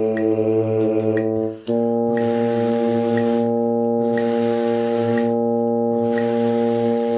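Tuba mouthpieces buzzing a long note over a sustained drone reference tone, with a metronome clicking about once a second. About a second and a half in, the note breaks off. The drone comes back on a new, steady pitch and carries on with the metronome while the players rest.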